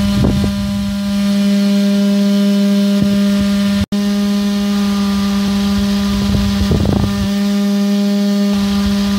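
Small electric motor of a homemade toy winnowing fan running with a steady high hum, blowing the chaff out of wheat poured through it. The hum drops out for an instant about four seconds in, and there are two short rustling bursts, one right at the start and one around seven seconds.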